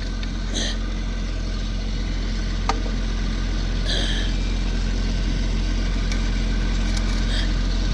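An engine running steadily at idle, a low drone, with a few faint clicks or scrapes over it.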